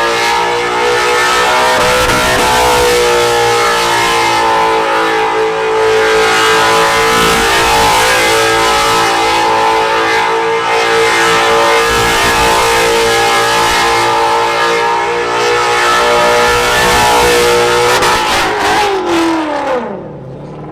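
Car engine held at high revs for a long stretch with a steady pitch, then the revs fall away near the end and it goes quieter.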